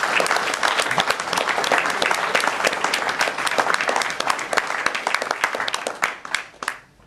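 Audience applauding, a dense run of clapping that dies away about six and a half seconds in.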